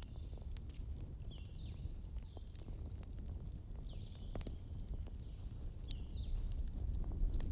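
Outdoor bonfire burning with a steady low rumble and scattered sharp crackles and pops. Small birds chirp in the background, in short high descending notes and one longer whistle midway.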